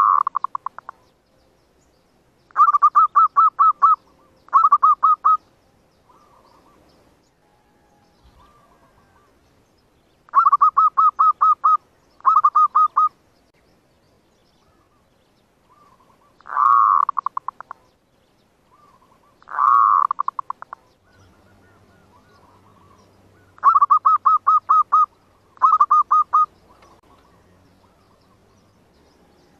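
Zebra doves cooing: repeated bursts of rapid staccato coos, about seven notes a second, with a few longer rolling coos between them.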